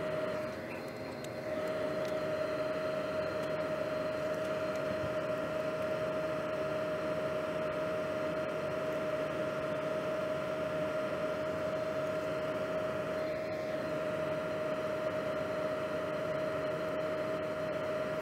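Steady whir of a small electric fan with a constant mid-pitched hum; the level dips briefly about half a second in.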